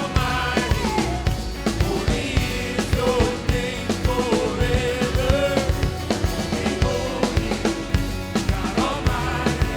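Church worship music from a band with a drum kit keeping a steady beat, and wavering sung melody lines over it.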